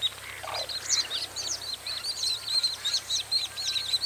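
A chorus of small birds chirping: many short, high-pitched calls overlapping several times a second, with one brief lower call about half a second in.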